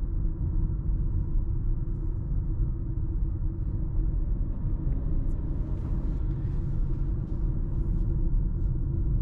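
Steady low rumble of tyres and road noise inside the cabin of a Dacia Jogger Hybrid 140 driving at city speed, running in electric-only mode with the petrol engine off.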